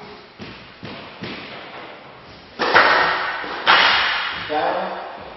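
Squash rally: the ball cracking off rackets and the court walls, a string of sharp hits each trailing off in an echo. The two loudest hits come about two and a half and three and a half seconds in.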